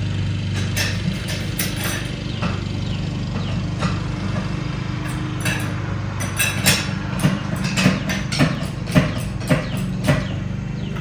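A jack being pumped to lift the bike higher: a run of clicks and knocks about twice a second in the second half, over a steady low hum.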